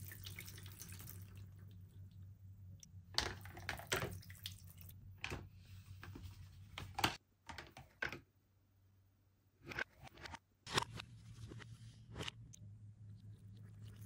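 Water trickling and dripping down a plastic toy lagoon playset's tower and slides, with scattered short sharp splashes. The sound drops almost away for a couple of seconds past the middle.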